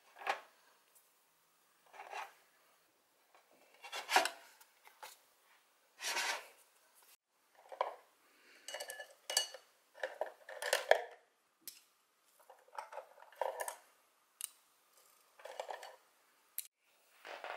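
Hands handling art supplies: a dozen or so short, separate clinks, taps and rustles with brief silences between them.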